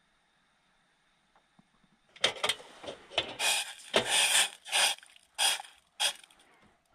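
Handling noise: a run of about eight short, loud rustling and rubbing scrapes starting about two seconds in, as a person moves and takes up a saucepan from a portable gas camping stove.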